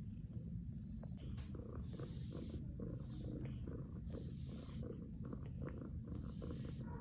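Domestic cat purring close to the microphone: a steady low rumble, with small clicks and rustles on top.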